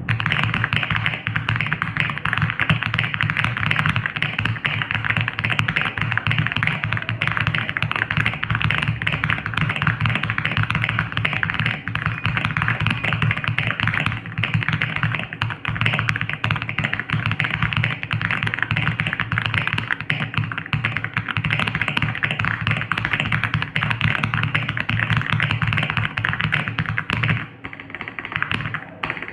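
Fast, continuous typing on an Aula F99 mechanical keyboard with Crescent switches: a dense, unbroken stream of creamy key clacks, with a short pause near the end.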